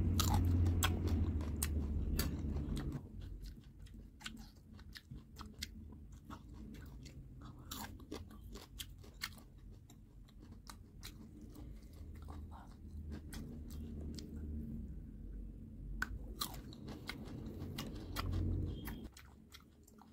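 Chewing and crunching a bitten small citrus fruit, with many sharp wet mouth clicks. Louder in the first few seconds, softer through the middle, louder again before dropping off near the end.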